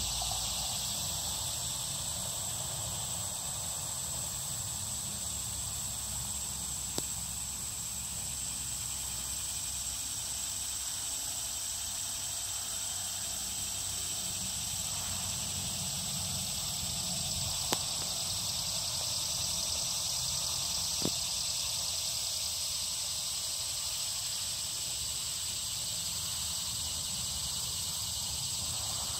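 Steady high-pitched insect chorus that runs unbroken, over a low rumble, with three faint clicks.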